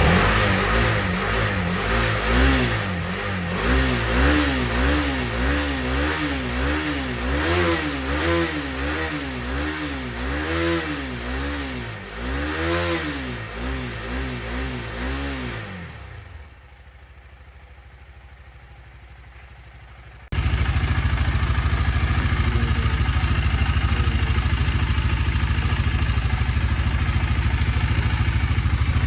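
KTM Duke 250 single-cylinder engine running on its first start after a year dead, revved in repeated throttle blips that rise and fall about once a second. It dies away about sixteen seconds in. After a short quiet gap, steady even running comes in abruptly.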